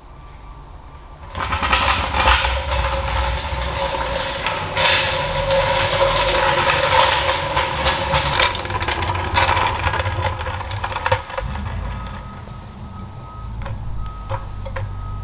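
Low-profile steel floor jack being let down and rolled out across a concrete floor, its casters grinding and rumbling. The noise starts about a second and a half in, runs steadily with a ringing tone through it, and dies down to a lower rumble with light ticks after about eleven seconds.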